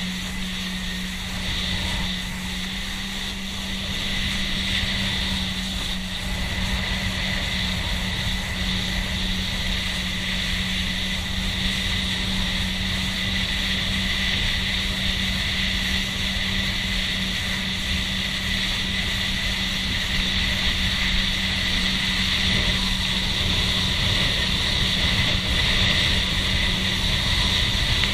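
A boat's engine running steadily at cruising speed, a constant drone, over wind noise and water rushing past the hull.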